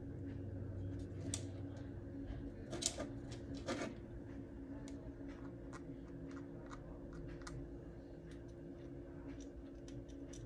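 Light clicks and scratches of hand work on scope ring screws with a small thread locker bottle, with two louder clatters about three and four seconds in, over a steady low hum.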